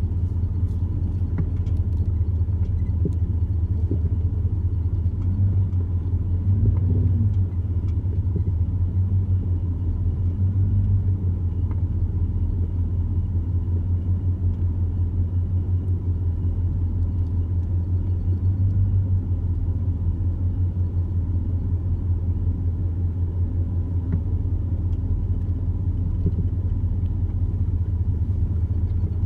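Steady low rumble of a vehicle running, with no change over the whole stretch.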